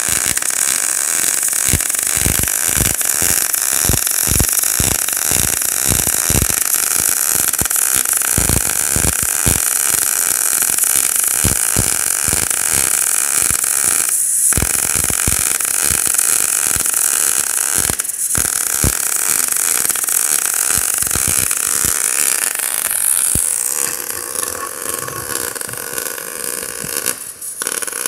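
MIG arc of a Merkle MobiMIG 180K welding thin steel plate in its ColdMIG controlled short-circuit mode: a steady hiss with irregular crackling. The arc cuts out briefly twice, then stops near the end.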